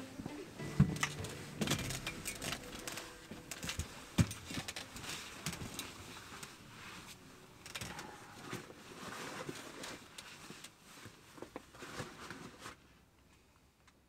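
Scattered clicks, knocks and rustling at irregular intervals, fading out about a second before the end.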